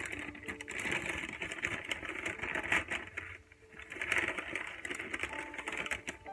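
Brown kraft paper bag rustling and crinkling as it is unfolded and opened by hand, in two spells with a short pause about three and a half seconds in.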